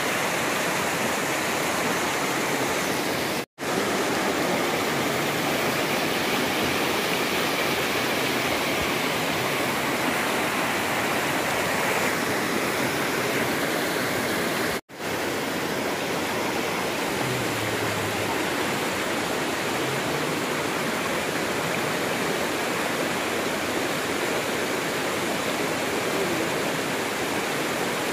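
Swollen river water rushing steadily through and past a bamboo fish weir, with water pouring through gaps in the fencing. The rush drops out for an instant twice, once early and once about halfway.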